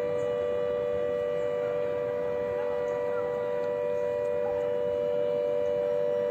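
Demolition warning siren sounding a steady, unwavering tone made of two close pitches, ahead of a high-rise's controlled blast.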